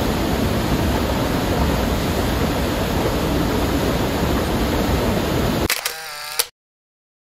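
A waterfall's rushing water, a dense, steady roar. Near the end it cuts off abruptly into a brief pitched sound and a dead-silent gap.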